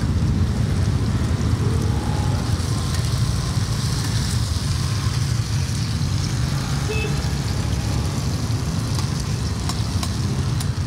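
Cubes of rice-flour cake (bột chiên) frying in oil on a large flat pan, with a steady sizzle as a metal spatula turns them. A steady low rumble runs underneath, and a few sharp clicks come near the end.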